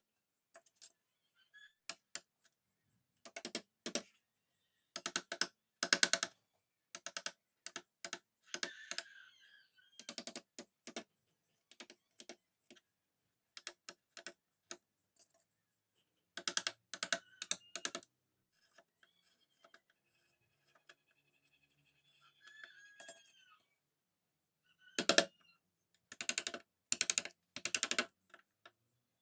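Wood-carving chisel being tapped with a mallet: irregular sharp knocks, sometimes in quick runs of several strikes, with pauses between runs.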